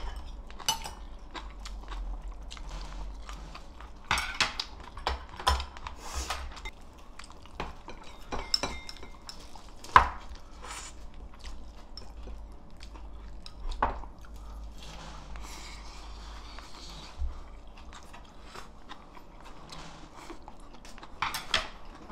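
Eating utensils clinking and tapping against dishes at a table in scattered single taps, the sharpest about ten seconds in, along with crunchy chewing of a fresh bomdong cabbage-leaf wrap.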